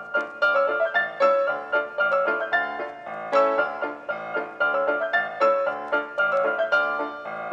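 Background piano music: a light tune of quick notes struck one after another.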